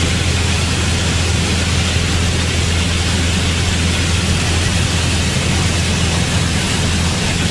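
Piper light aircraft in flight, heard from inside the cockpit: a steady low engine and propeller drone under a loud, even rush of airflow hiss.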